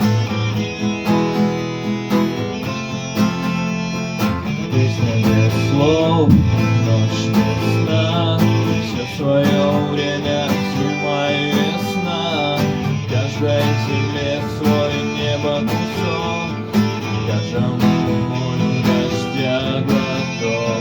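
Instrumental rock music led by guitars, with bass and a steady beat. One guitar note bends in pitch about six seconds in.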